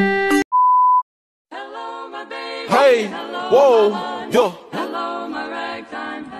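A single steady electronic beep lasting about half a second, followed by a moment of silence, then a song with a singing voice that slides up and down in pitch over music from about one and a half seconds in.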